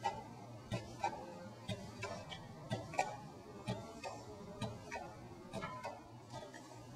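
PulStar computerized chiropractic instrument delivering gentle repetitive impulses, heard as sharp clicks about three a second.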